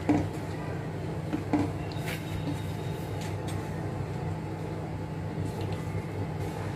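A wooden spatula stirring thick, creamy chicken gravy in a nonstick pan, with a few light knocks and scrapes against the pan, the loudest right at the start. A steady low hum runs underneath.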